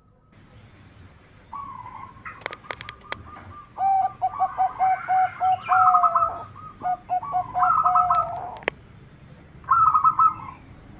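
Zebra dove (perkutut) song: rapid runs of short, staccato cooing notes, strongest from about four seconds in and again briefly near the end. A few sharp clicks come between two and three seconds in, and one more just before the second run.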